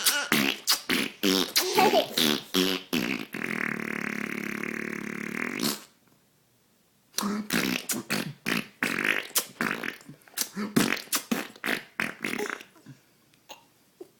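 Fart noises blown with the lips as raspberries. A run of quick short bursts, then one long buzzing raspberry of about two and a half seconds, a pause of about a second, then another run of short bursts that fades out near the end.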